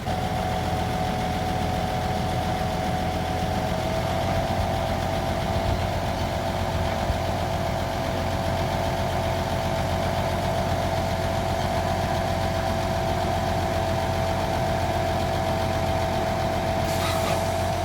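Truck engine running steadily at idle, with a constant high whine over the low hum.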